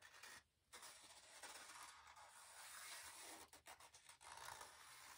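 Faint scratching of a Sharpie marker drawn along the plastic backing of a faux tin wall tile as it traces around a wooden cutout, in short uneven strokes.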